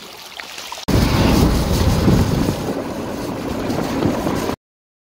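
Loud wind rumble buffeting the microphone inside a car, starting abruptly about a second in and cutting off to silence shortly before the end. Before it, faint running water.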